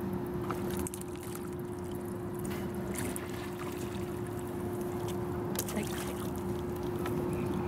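An engine running steadily, a constant hum with a higher tone above a lower drone, with a few faint clicks over it.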